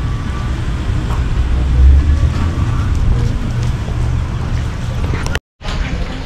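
Low rumble of wind buffeting the camera microphone outdoors, surging and easing unevenly. The sound breaks off for a moment near the end.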